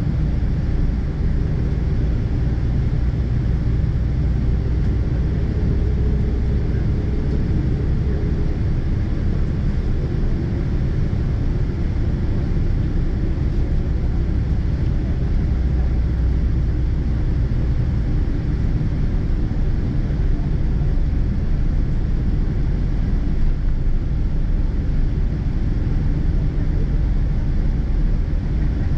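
Cabin noise inside a Boeing 777-200ER taxiing: a steady low rumble from the engines at idle and the airframe.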